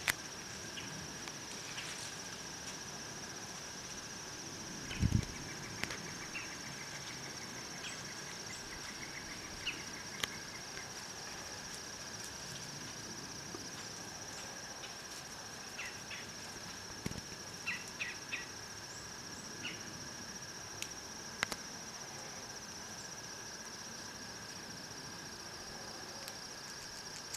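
Steady insect chorus of crickets trilling, with scattered faint clicks and one low thump about five seconds in.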